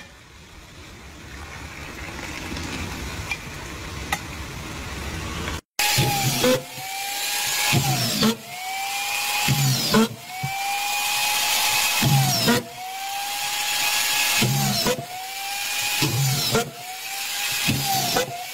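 An automatic screw-driving rig fed by a strip of collated screws drives screws into pine boards one after another, about one every two seconds. Each drive starts with a low thump, then a steady motor whine that cuts off sharply. Before that there is a few seconds of steady hiss as tea is poured from a kettle into a glass.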